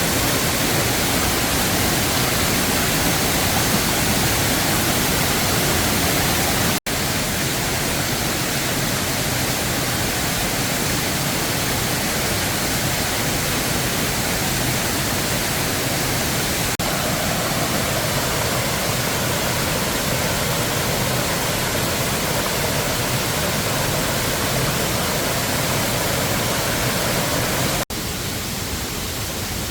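Waterfall rushing steadily, a loud even roar of falling water, broken by two momentary cuts, about seven seconds in and near the end.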